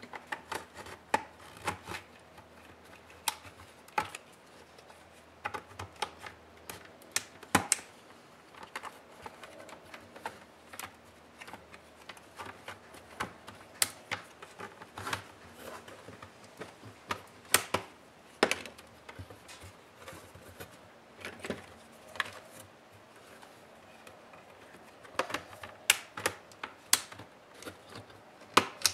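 Irregular clicks, taps and small snaps of plastic and metal as a laptop's display hinge cover, with its metal hinges, is worked off the bottom edge of the screen panel and handled. A few of the knocks are sharper and louder than the rest.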